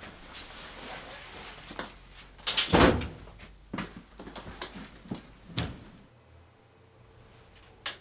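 Rustling and knocking of a person sitting down at a desk chair, loudest in a heavy rustling thump about two and a half seconds in. Scattered clicks and taps follow.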